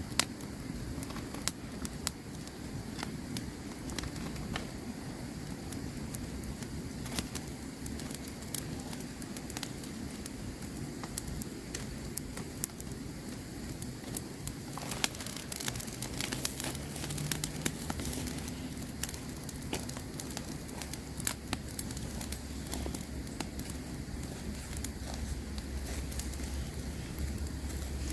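Campfire burning with irregular sharp crackles and pops of the wood over a steady low rumble of flame.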